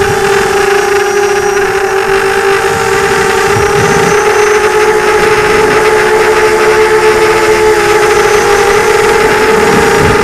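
Electric motors and propellers of an FPV drone, heard from its onboard camera, giving a steady high whine whose pitch sags slightly about seven seconds in. Wind rumbles on the microphone in gusts.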